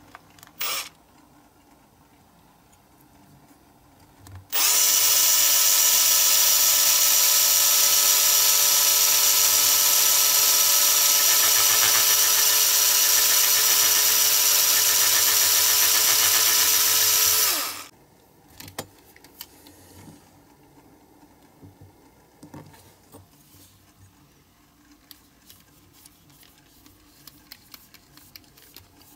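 Cordless drill spinning up and running at steady speed for about thirteen seconds, drilling into a diecast metal model body at its rivet hole, its motor whine dropping away as it stops; a short blip of the drill comes under a second in. Afterwards only faint small clicks and ticks of hand work.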